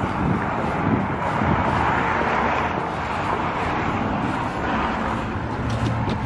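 Steady outdoor street noise: road traffic hum with wind on the microphone.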